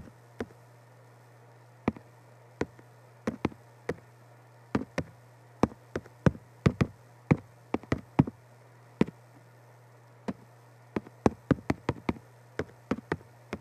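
Typing on an iPad's on-screen keyboard: irregular sharp clicks, a few a second with short pauses between bursts, over a steady low hum.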